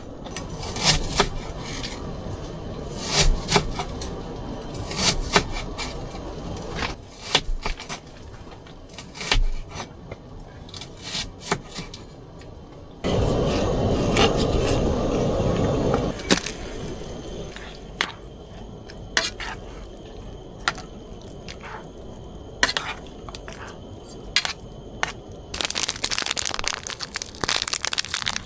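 Irregular sharp cracks and knocks, some in quick clusters, with about three seconds of steady rushing noise near the middle.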